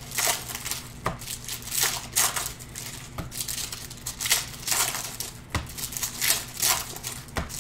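Foil wrappers of Panini Prizm basketball card packs crinkling and tearing as they are ripped open by hand, in irregular bursts of crackle with a few soft knocks.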